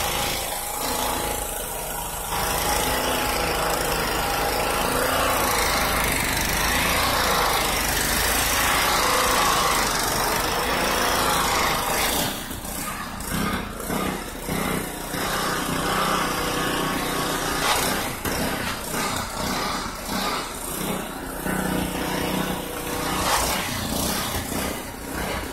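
An engine running, steady for the first half, then uneven with repeated surges in level from about halfway on.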